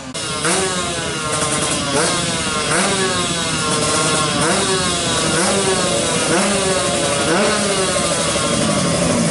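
Two-stroke Kawasaki Ninja 150 drag bike engine revving hard, its pitch shooting up and falling back over and over, about every three quarters of a second. Near the end a second engine holds a steadier note beneath.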